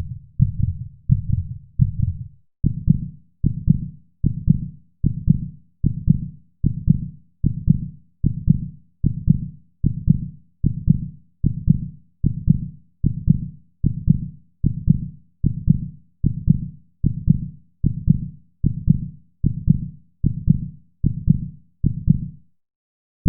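Heartbeat sound effect: low, deep beats in a steady rhythm, quick for the first two seconds or so, then slowing to a little over one beat a second. It stops briefly near the end.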